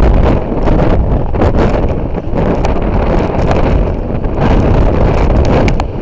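Strong windstorm gusts blasting across the microphone: a loud, continuous rumbling buffet that keeps surging and easing.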